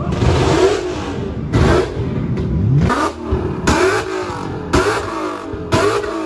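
Car engine revving hard in repeated surges, roughly one a second, each rising in pitch with a loud rushing noise on top.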